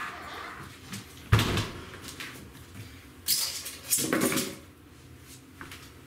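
Knocks and scrapes of a Samsung front-loading washing machine being handled and shifted: a sharp knock about a second and a half in, then two longer scraping bursts around three and four seconds in.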